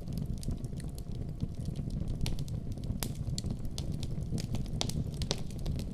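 Wood campfire crackling, with frequent sharp, irregular pops over a steady low rumble.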